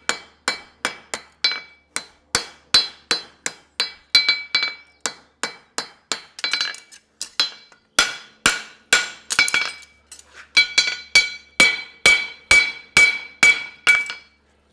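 Farrier's hand hammer striking a steel horseshoe held in tongs on an anvil, a steady run of blows about two to three a second, many leaving a high metallic ring. The blows are finishing the shoe, cleaning up the heel and flattening the branch smooth.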